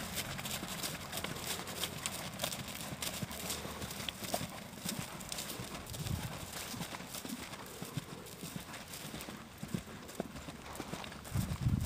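Hoofbeats of a Percheron/Thoroughbred cross gelding cantering on grass: soft, faint thuds over a steady background hiss, louder near the end.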